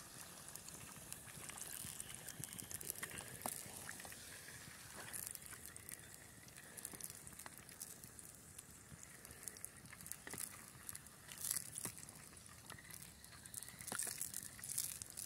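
Faint crackling of a small twig campfire with scattered sharp pops, over a steady hiss of chicken frying in a pot set on the fire.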